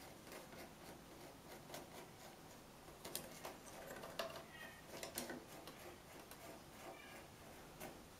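Faint, irregular clicks and scratches of a kitten's claws gripping and stepping on bark-covered wooden branches, a little louder in the middle.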